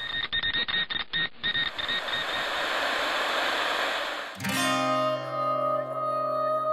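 Instrumental song intro: a hiss-like noise effect, chopped into rapid stutters at first, gives way about four seconds in to held musical chords.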